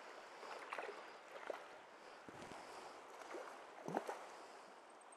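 Creek water running steadily, with a few small splashes and sloshes, about five of them, from a hooked grayling being played at the surface.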